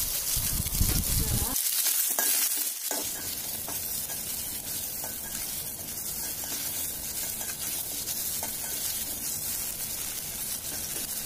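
Small onions (shallots) and chopped tomatoes sizzling in hot oil in a stainless steel kadai, stirred with a spatula. The sizzle is a steady hiss.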